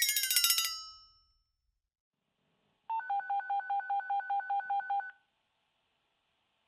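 Electronic two-tone alert beeping on an emergency dispatch radio: about two seconds of rapid, even beeps, about five a second, coming in a few seconds in. It sounds like repeated touch-tone keypad tones. In the first second a gliding electronic tone fades out.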